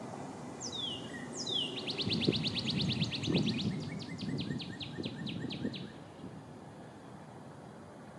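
Male northern cardinal singing: two long down-slurred whistles, then a fast run of short repeated notes that slows toward the end and stops about six seconds in.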